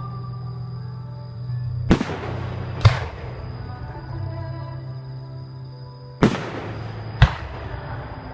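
Aerial fireworks shells bursting: four sharp bangs, two about a second apart near the start and two more about a second apart later, over steady background music.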